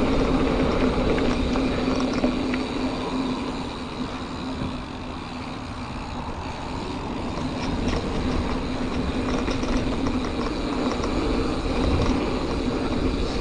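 Giant Fathom 2 29er hardtail mountain bike rolling along a dirt trail: tyres rumbling and the bike rattling over the ground, with a steady buzzing tone throughout. It eases off a little a few seconds in and builds again.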